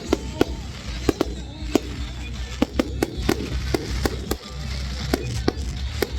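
Fireworks going off in an irregular series of sharp bangs, about two a second, over a steady low rumble with music in the background.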